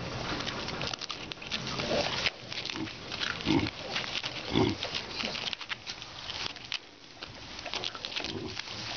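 Hamadryas baboons giving several short, low grunts amid crackling and rustling.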